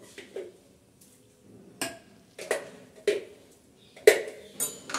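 A metal spoon clinking and knocking against a small glass jar and a clay pot as ginger-garlic paste is scooped out and tipped in: about six separate clinks, some ringing briefly, the loudest about four seconds in.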